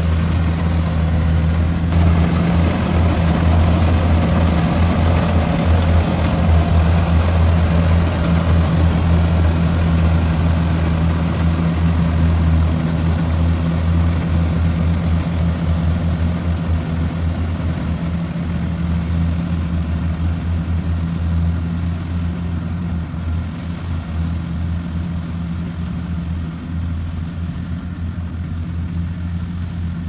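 Kubota DC-93 rice combine harvester running steadily while harvesting, a constant low diesel engine drone with machinery noise over it; it grows a little fainter in the last third.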